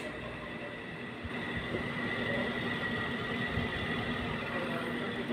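Window-type air conditioner running with a steady hum and a faint high whine, getting a little louder about a second and a half in. It is being test-run just after its compressor capacitor was replaced.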